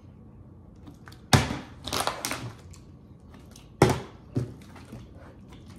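A plastic water bottle being flipped and landing on a kitchen countertop: two sharp thuds about two and a half seconds apart, with softer crackling and clicks between them.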